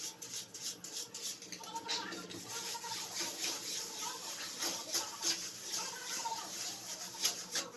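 Plastering tool scraping and rubbing across a plastered wall in quick repeated strokes, with faint voices behind.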